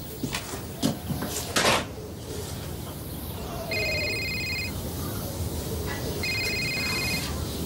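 A telephone rings twice, each ring a steady trilling tone about a second long, the rings about two and a half seconds apart. A few sharp knocks come before them in the first couple of seconds.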